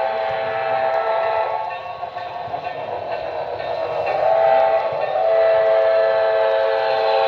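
A model steam locomotive's sound-decoder chime whistle blowing: one long blast that ends about a second and a half in, then another long blast starting about four seconds in that is still sounding at the end.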